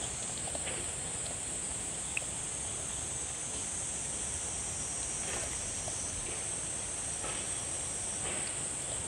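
Insects outdoors giving a steady high-pitched drone, with a few faint soft ticks here and there.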